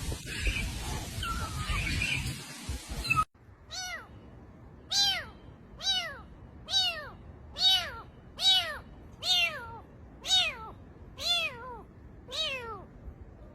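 A rumbling noise, then after a sudden cut a kitten meowing over and over, about eleven high-pitched meows, each rising then falling, close to one a second.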